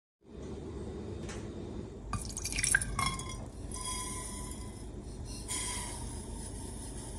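Caster sugar pouring in a stream into water in a metal saucepan: a hiss with drips and splashes, and a few sharp clinks about two to three seconds in.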